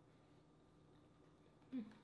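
Near silence: faint room tone, broken near the end by one short, low voice sound.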